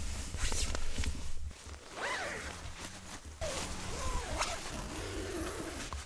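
Nylon tent fabric rustling and a door zipper being pulled as the tent is opened, with a bird calling a few times behind it.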